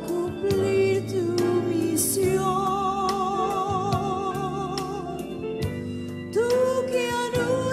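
Gospel hymn: a single voice singing with vibrato over instrumental backing with a steady beat, holding one long note through the middle and coming in on a new phrase near the end.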